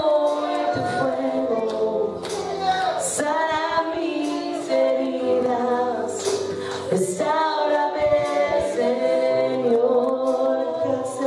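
A group of voices singing a worship song together, holding long notes in phrases with short breaks between them.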